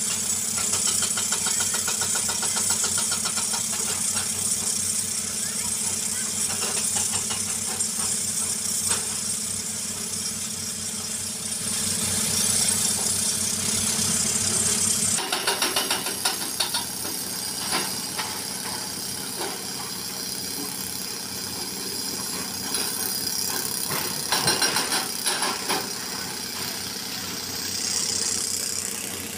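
Diesel engine of a Hyundai crawler excavator running steadily as it works a pile of broken rock. About halfway through, the sound changes abruptly to a slightly quieter engine hum with scattered knocks and clatter.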